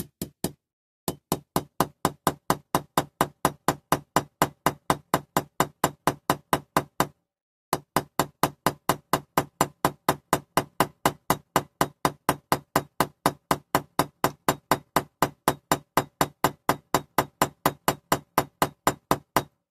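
Small hammer tapping steadily on a metal pin in a die-cast Dinky Toys crane body, peening the pin over, about three light blows a second with one short pause about seven seconds in.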